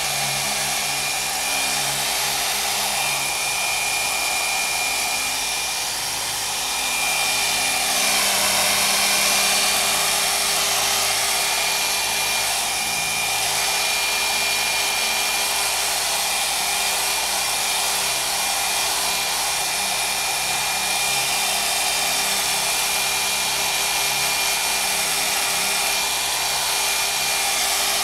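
Hand-held hair dryer running steadily, a rush of blown air with a thin high whine over it, drying wet watercolour paint on paper.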